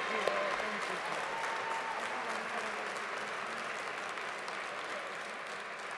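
Audience applause: a large crowd clapping steadily, gradually dying down.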